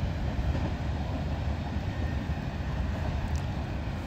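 Loaded coal hopper cars of a freight train rolling past a grade crossing, a steady rolling noise of steel wheels on rail.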